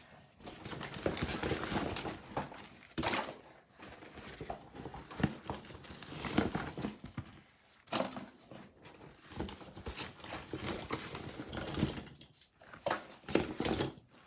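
Plastic fidget toys being handled and put into a container to soak, with irregular rustling, clatter and knocks.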